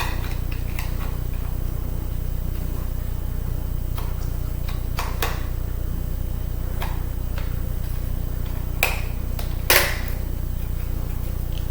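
A few scattered small clicks and taps of a screwdriver and screws against the metal casing of a laptop CD drive being unscrewed, the loudest near the end, over a steady low hum.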